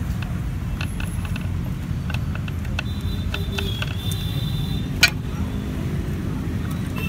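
Steady low mechanical rumble, with light clicks of hands handling metal parts at the engine's ignition plate and one sharper click about five seconds in.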